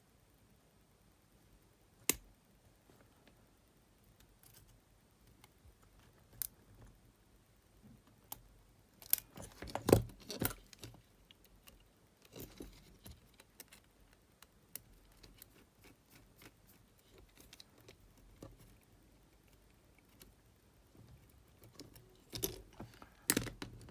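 Scattered small clicks and taps of metal parts and hand tools, pliers and a small screwdriver, on a Sony TCM-450 cassette recorder's mechanism. The loudest cluster of clicks comes about ten seconds in, with another group near the end.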